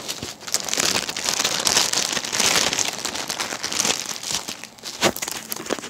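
Small plastic bags of diamond painting drills being handled, crinkling continuously, with scattered sharp clicks and a stronger one about five seconds in.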